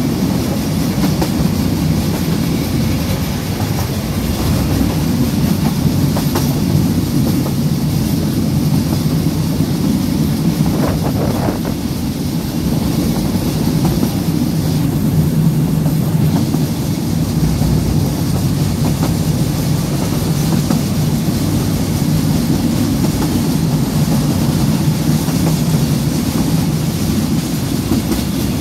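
Narrow-gauge passenger train running on 3 ft gauge track, heard from aboard an open-sided carriage: a steady rumble of the wheels on the rails.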